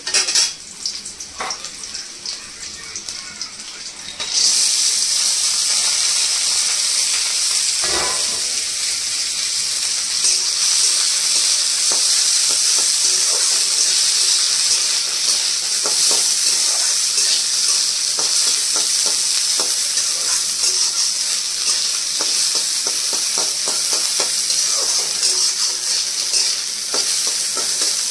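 Food sizzling in hot oil in a pan, with a spatula stirring and scraping. The first few seconds hold only quieter utensil clinks, then the sizzling starts suddenly about four seconds in and goes on steadily.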